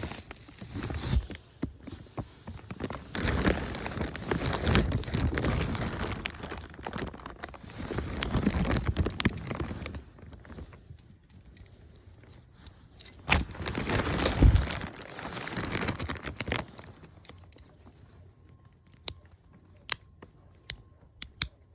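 Irregular rubbing, brushing and crinkling as the doll is handled and cleaned, in two long stretches with a quieter gap between, then a few sharp clicks near the end.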